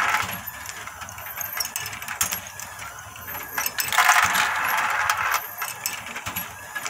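Steel balls let out of a Meccano model funicular car in groups, clattering in metal: one surge of rattling at the start and another about four seconds in, over the steady clicking of the model's ball-pump mechanism running.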